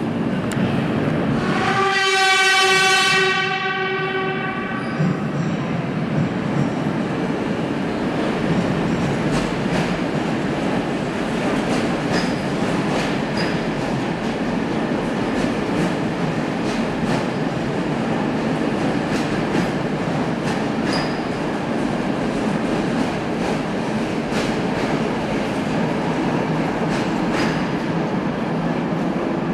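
Subway train sounding its horn as it comes into the station: one steady tone about two seconds long near the start. Then the train runs along the platform, a continuous rush of wheel and rail noise with repeated clicks as the wheels cross the rail joints.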